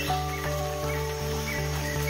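Background music with a steady pulsing beat under sustained tones and short high notes.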